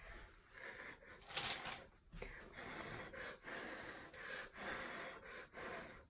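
A person blowing by mouth onto wet acrylic pour paint in a series of short, breathy puffs with brief pauses between them, the loudest about a second and a half in, pushing the paint across the canvas to open up the colours beneath.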